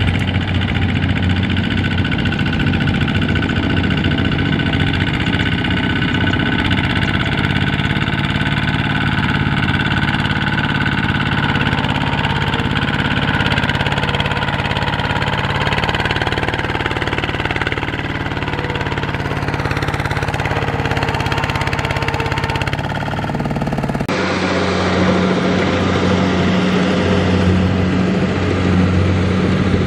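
Kubota RT155 walking tractor's single-cylinder diesel engine running under load, pulling a loaded rice trailer through deep mud. About 24 seconds in the sound changes abruptly to a steadier, lower pulsing engine note.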